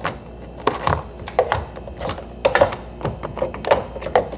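Plastic refrigerator kick plate being fitted back on: an irregular run of sharp plastic clicks and knocks as its tabs are worked against the cabinet to clip it in place.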